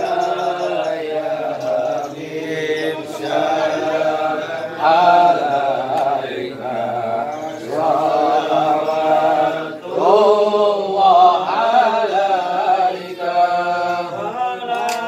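A group of men chanting an Islamic devotional song (sholawat) together, in long melodic phrases with brief breaks for breath.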